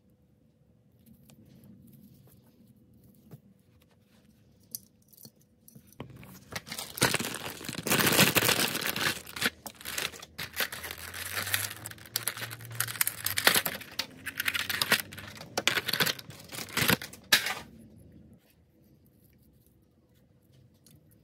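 Packaging being torn open and crumpled by hand: a few light clicks of handling, then about ten seconds of dense ripping and crinkling that stops near the end.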